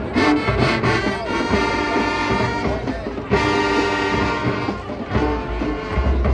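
High school marching band playing, with the brass sustaining held chords and a new loud chord coming in about three seconds in.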